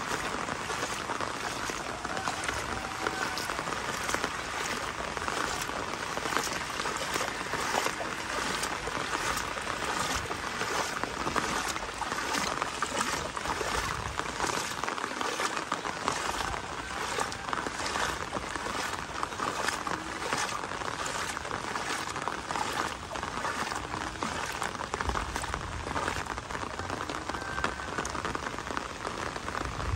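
Steady rain falling on a flooded road, with regular footsteps splashing through shallow floodwater.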